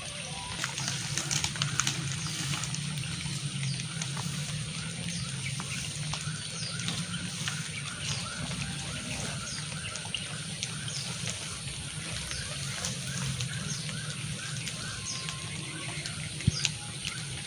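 Outdoor ambience with a rapid, steady run of repeated chirping animal calls over a low steady hum, and one sharp click near the end.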